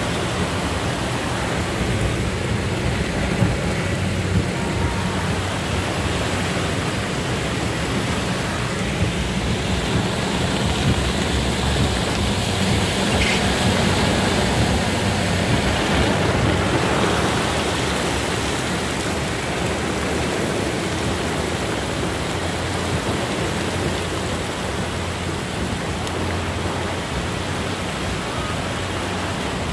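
Heavy rain beating steadily on a car, heard from inside the cabin, with a low steady rumble underneath.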